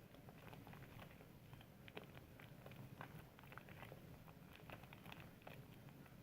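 Faint wet crackling and squishing of soap lather being worked, with many small irregular pops.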